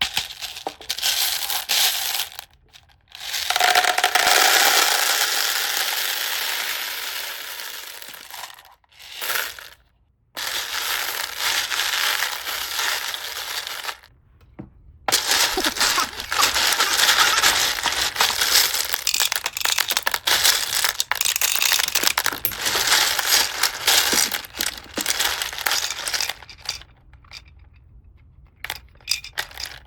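Plastic packaging crinkling and crumpling in bursts as toy pieces are unwrapped, with a smoother hiss a few seconds in that fades away over about four seconds.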